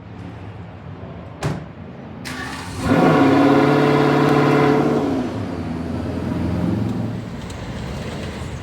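A car engine starting: a sharp click, then the engine catches, revs up for a couple of seconds and settles back to a steady run.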